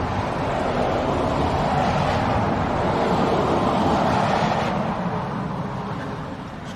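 A vehicle passing on a wet road: a steady rush of tyre hiss that swells to its loudest about three to four seconds in, then fades away.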